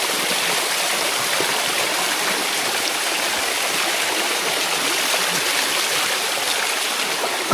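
Water of a shallow waterfall cascade running steadily over mineral-crusted limestone rock, a continuous rushing and splashing.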